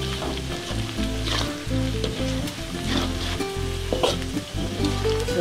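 Chopped preserved radish, garlic and chillies sizzling in hot oil in a wok, with a metal spatula stirring and scraping against the pan a few times, frying until the garlic is brown and fragrant.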